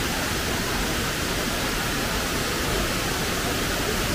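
Steady, even rushing of a waterfall almost 100 feet tall.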